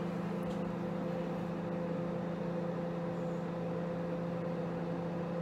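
Microwave oven running with a steady, even hum, eggs poaching inside.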